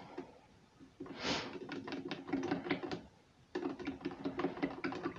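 Wooden chopsticks tapping and scraping in a small glass dish of soy sauce: rapid light clicks in two spells of about two seconds each, with a short hiss about a second in.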